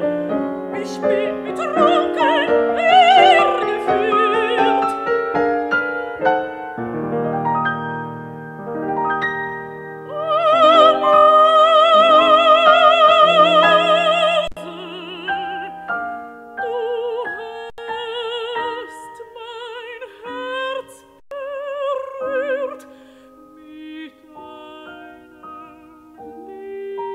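Mezzo-soprano singing a German art song with piano accompaniment. About ten seconds in she holds a loud note for some four seconds with wide vibrato, then goes on in softer phrases over the piano.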